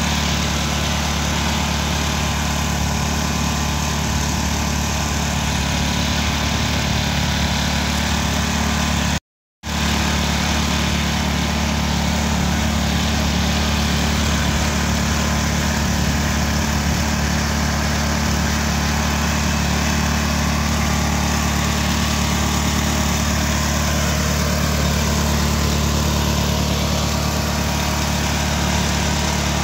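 Engine-driven machine crushing finger millet, running steadily at a constant hum, with a half-second gap of silence about nine seconds in.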